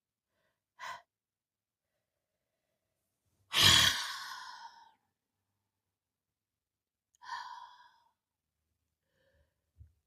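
A person breathing audibly in a deliberate relaxation-breathing exercise: three unvoiced breaths. A short one comes about a second in, a louder one near four seconds starts strongly and fades over about a second, and a softer one comes about seven seconds in.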